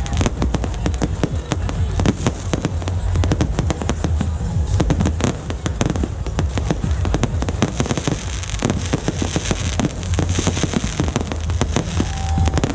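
Fireworks going off in a dense, continuous barrage of rapid bangs and crackles over a steady low rumble.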